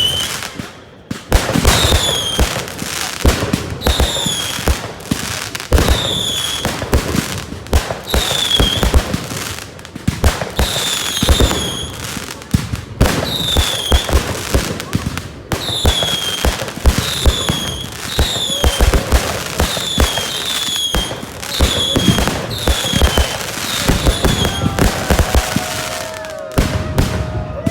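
Fireworks going off continuously: repeated bangs and crackling, with short high whistles that fall in pitch every second or two. Near the end come a few longer, lower whistles.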